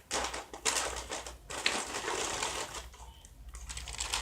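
Plastic snack packaging crinkling and rustling in irregular bursts as it is handled, with a short lull about three seconds in.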